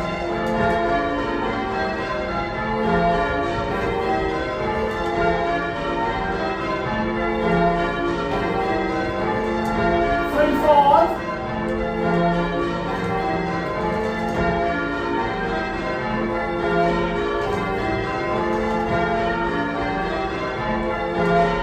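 Ring of eight church bells, mostly Gillett & Johnston bells of 1937 with two 1750 Thomas Wroth bells and a tenor in F, rung as call changes. The bells strike one after another in an even rhythm, and the low tenor note comes round about every two and a half seconds. A short louder sliding sound, fitting a conductor's call, rises over the bells about halfway through.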